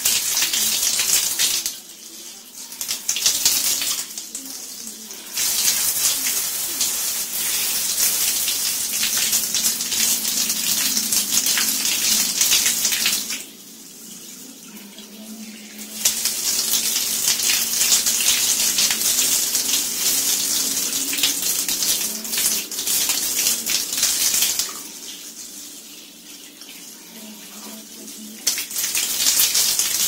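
Hose water spraying onto a small plastic washing-machine lint filter and splashing on a tiled floor as it is rinsed clean of lint and dirt. The spray is loud and hissing, dropping away briefly three times as it is moved off the filter.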